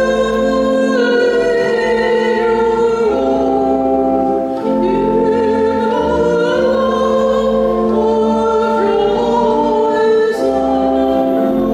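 A hymn sung to instrumental accompaniment, with held chords changing every second or so under a wavering singing voice: the offertory hymn during the preparation of the gifts at Mass.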